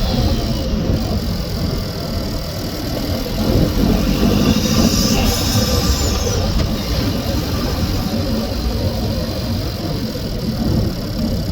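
2016 Renault Mégane's 1.2 TCe turbocharged petrol engine running under the bonnet while the car is driven at low speed, with a faint falling whistle about six seconds in.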